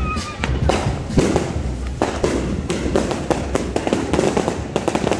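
Fireworks and firecrackers going off in a rapid, irregular string of overlapping bangs and crackles, with one sharp bang about a second in.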